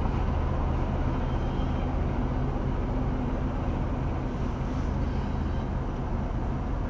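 Freight train of tank cars rolling steadily past a railroad crossing, a continuous low rumble heard from inside a stopped car.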